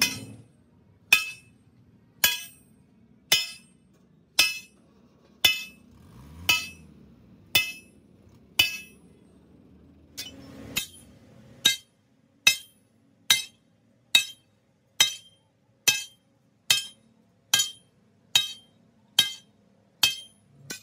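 Sledgehammer blows on a steel truck leaf-spring leaf held on an anvil, reshaping the leaf's curve in a leaf spring restoration. The strikes are steady and sharp, each with a short metallic ring, about one a second at first and a little faster in the second half.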